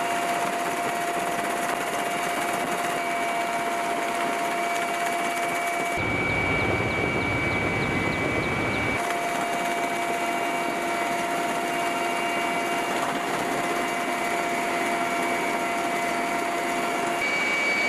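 Steady engine whine with a few held high tones. For about three seconds in the middle it gives way to a deeper rumble as a military helicopter flies past low.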